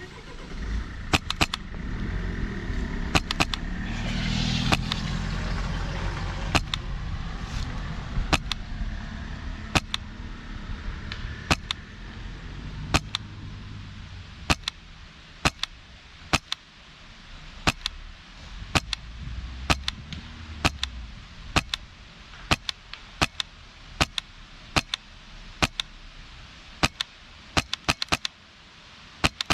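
Single shots from a PolarStar Kythera HPA-powered airsoft rifle, a sharp snap about every second or so, sometimes two in quick succession. A passing vehicle rumbles in the background through the first half and briefly again past the middle.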